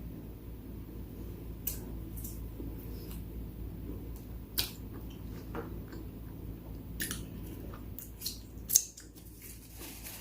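Close-miked eating sounds: wet chewing and smacking heard as a string of short, sharp clicks, the loudest near the end, over a low steady hum.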